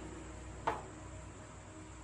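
A single sharp knock about two-thirds of a second in, over a faint steady low hum.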